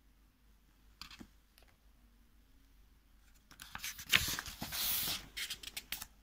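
A page of a picture book being turned by hand: a short paper rustle about a second in, then louder rustling and crackling of the page as it is lifted and turned over, from about three and a half seconds in until just before the end.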